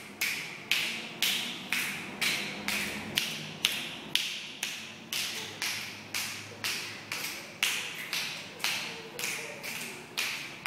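Finger snaps keeping a steady beat, about two sharp clicks a second, each with a short room ring, marking the tempo for slow movement exercises.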